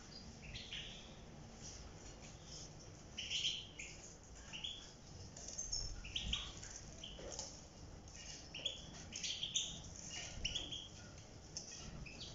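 European goldfinches giving quick, high chirping calls and twitters, several birds at once in an irregular scatter.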